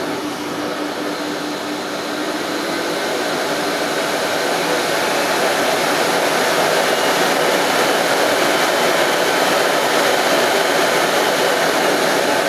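Sebo C3 Power cylinder vacuum cleaner's motor running. It grows louder over a few seconds as the power control on the handle is slid up from a low setting to 1500, then runs steadily at full power.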